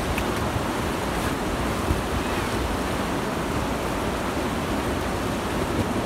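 Steady rush of whitewater river rapids around an inflatable raft, with wind buffeting the microphone.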